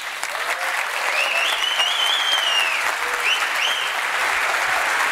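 Audience applauding, building up just after the start and continuing steadily, with a few high whistling notes over the clapping.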